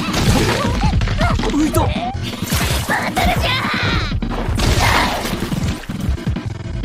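Anime fight soundtrack: a shouted battle cry and strained voices, with thuds and crashing hits over dramatic background music.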